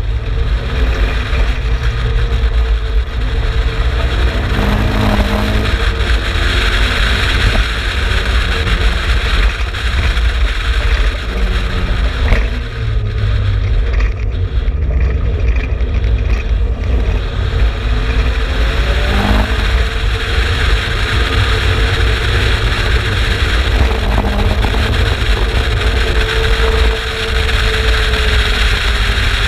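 Turbocharged Mazda BP 1.8-litre four-cylinder in an Exocet kit car running hard on track, its note rising and falling with throttle and gear changes. A steady low rumble lies under it, and a sharp crack comes about twelve seconds in.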